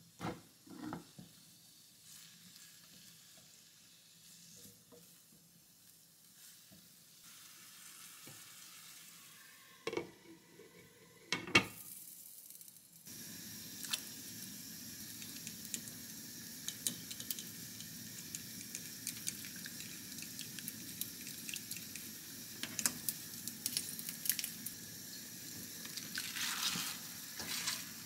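Light stir-frying in a pan with a few utensil clicks and knocks. From about halfway, a saucepan of broth simmers on a gas burner as a steady bubbling hiss with small crackles. Near the end there is a rustle as a handful of spinach goes into the pot.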